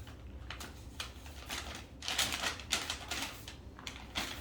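Packaging being torn and rustled off a present: a run of irregular crackling tears and crinkles.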